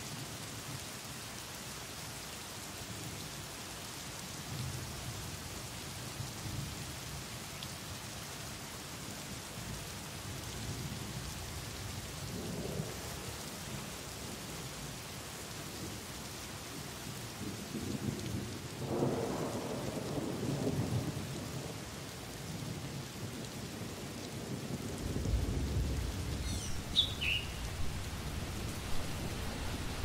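Steady rain falling on forest foliage, with low rolls of thunder rumbling, strongest about two-thirds in and again toward the end. A brief bird call sounds near the end.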